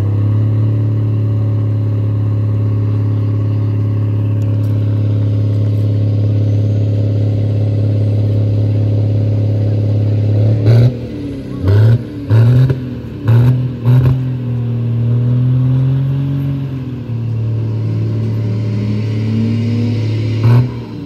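Diesel Dodge Ram pickup engine held at steady high revs, blowing black smoke. About halfway through it is blipped four times in quick succession, then held up again.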